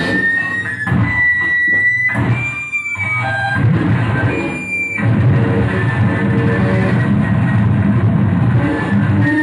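Electric guitar played loud through effects pedals and an amplifier. The first half is choppy distorted noise with high whistling tones that jump and slide in pitch. About five seconds in it settles into a dense, steady wall of low distorted noise.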